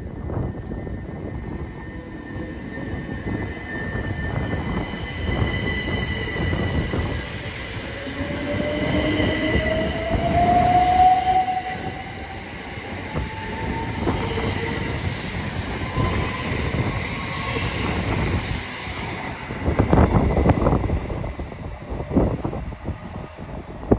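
c2c Class 357 electric multiple unit pulling away from the platform: a rumble of wheels on rail with a traction whine that climbs steadily in pitch as it gathers speed. Near the end a louder burst of wheel and rail noise comes as another Class 357 runs in.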